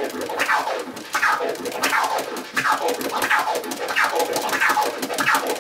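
Vinyl record scratched on a turntable in four-click orbits: each forward and backward push of the record is cut by the crossfader into five short pieces with evenly spaced clicks. The strokes repeat steadily, about one and a half a second, each sweeping up and then down in pitch.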